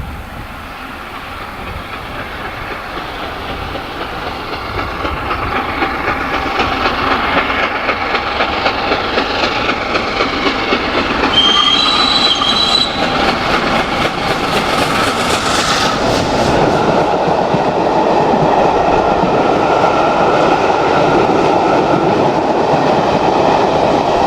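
LNER A3 steam locomotive Flying Scotsman and its train running past at speed. The rail noise builds steadily as it approaches, then stays loud, with wheels clattering over the rail joints and a brief high squeal about twelve seconds in.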